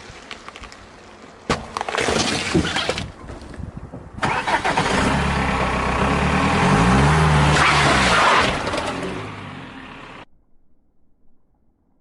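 A car's engine revs up and then eases back down as the car rolls over objects. Sharp cracks and crackling come a couple of seconds before the revving. The sound cuts off suddenly near the end.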